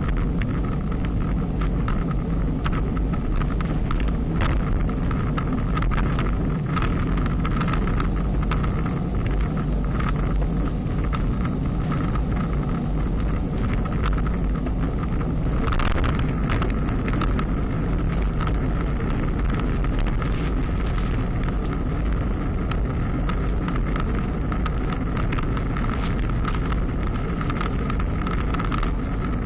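Wind rushing over the microphone of an action camera on a bicycle ridden at speed. Under it run a steady hum and scattered clicks and rattles, with one louder knock a little past halfway.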